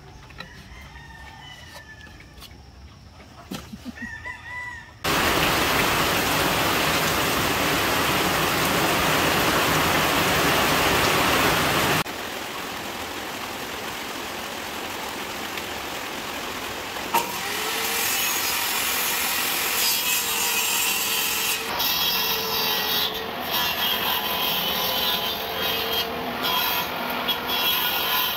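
Chickens clucking and a rooster crowing for the first few seconds. A loud steady noise then starts suddenly about five seconds in and cuts off about twelve seconds in, and over the last ten seconds a bench-mounted power saw cuts through a bamboo slat panel, its loudness rising and falling unevenly.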